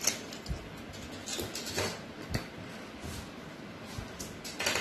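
A dog pawing and scrabbling about, with scattered sharp claw taps and knocks on a wooden surface and a few brief rustles.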